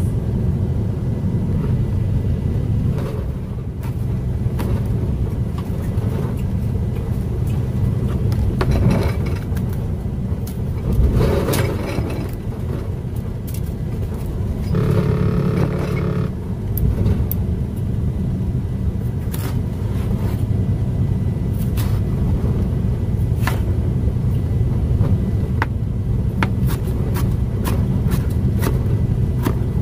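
Steady low rumble of a semi truck's idling diesel engine, heard inside the sleeper cab, with scattered light clicks and knocks of handling.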